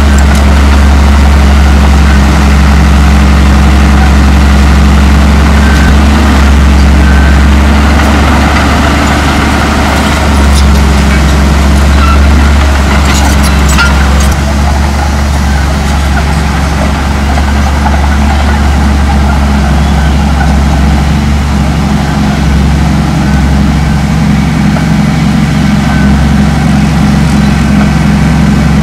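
Komatsu D58E crawler dozer's diesel engine running steadily and loudly, with a few sharp high clicks near the middle.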